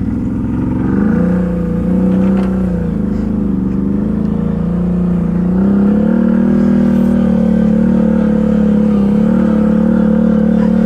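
ATV engine running under throttle: it speeds up about a second in, eases off briefly, then picks up again and holds a steady higher pitch.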